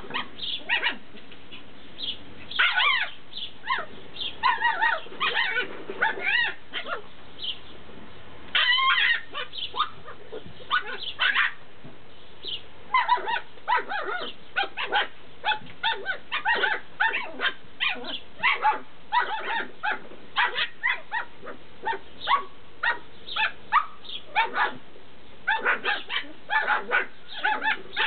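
Tibetan terrier puppies yelping and whining in many short, high-pitched calls that come in quick runs, busiest in the second half.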